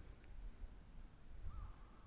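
A bird calling: short rising-and-falling calls, the first about one and a half seconds in, over a low rumble.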